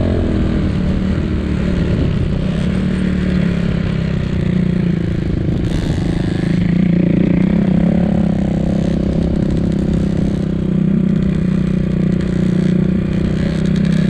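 Enduro motorcycle engine running at a steady pace while the bike rides along a snowy track.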